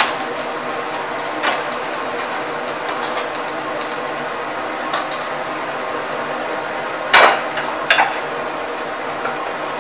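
Metal utensils clanking against a wok as bean sprouts and carrot are blanched, over the steady rush of a commercial gas wok range. A handful of sharp clanks stand out, the loudest about seven seconds in and another about a second later as a steel bowl is brought to the wok.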